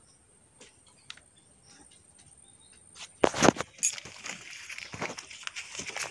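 A caught fish flopping on a bare floor: a few faint clicks, then a sudden loud slap about three seconds in, followed by a run of slaps and scuffs as it thrashes.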